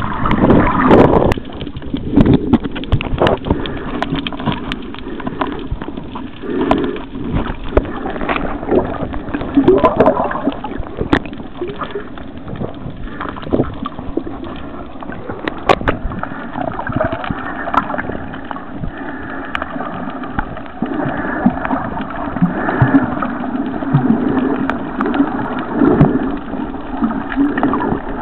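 Water gurgling and sloshing during a snorkel, swelling and falling irregularly, with a few sharp clicks.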